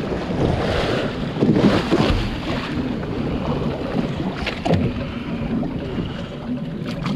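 Wind buffeting the microphone over sea water washing along a boat's hull.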